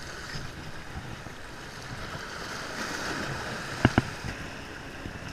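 Small waves washing against jetty rocks with wind on the microphone, a steady rush. A sharp double click about four seconds in.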